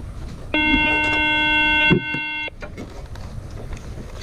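A vehicle horn sounds one steady note for about two seconds, starting about half a second in. A short knock comes near its end.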